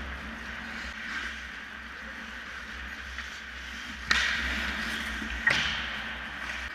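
Ice hockey play in a rink: skates scraping the ice steadily, with two sudden sharp sounds about four and five and a half seconds in, each fading over about a second.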